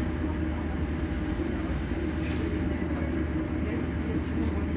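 Irizar ie tram electric bus standing at a stop, giving off a steady low hum with no engine note.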